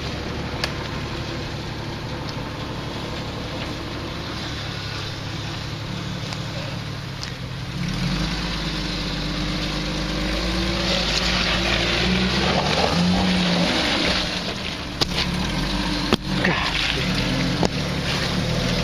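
Jeep engine running at low revs, then pulling harder from about eight seconds in as the Jeep crawls over rocks, its pitch stepping up and down with the throttle. A few sharp knocks come near the end.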